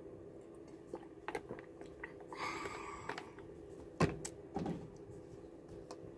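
A person drinking warm water from a plastic bottle: a few small swallowing clicks and a short breath out, then a sharp knock of a bottle being handled about four seconds in, over a faint steady hum.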